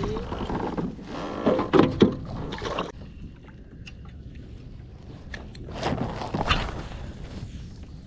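Wind and water noise around a small fishing boat on open water, with brief handling knocks and rustles.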